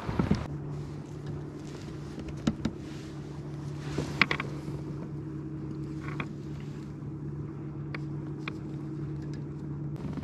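Kayak's electric drive motor running with a steady low hum, switched on about half a second in and off near the end. A few light knocks of gear against the hull.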